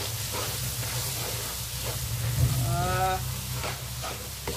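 Noodles stir-frying in a non-stick wok: a steady sizzle with a spatula scraping and tossing them. About halfway through there is a short pitched, hum-like sound lasting about half a second.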